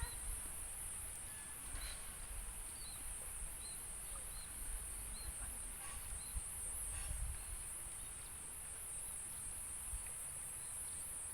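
Steady, high-pitched insect chorus with a faint pulsing. Over it a bird repeats a short, high note about once a second for several seconds, and there is a low wind-like rumble.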